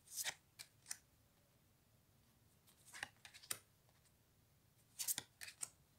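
Oracle cards being slid off the front of a large deck and moved to the back one at a time: three short clusters of faint papery swishes and taps, roughly every two and a half seconds.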